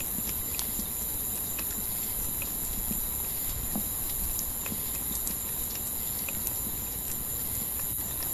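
Night-time wildlife ambience recording: a steady high-pitched chorus with scattered faint clicks.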